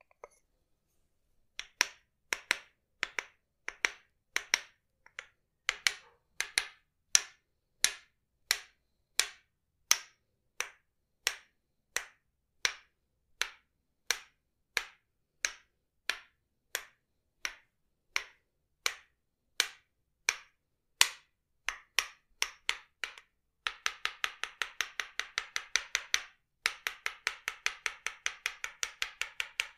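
Tok-Sen massage: a wooden mallet knocking on a wooden wedge, sharp hollow strikes about two a second. About 23 seconds in they turn into a rapid run of fast taps, broken once by a short gap.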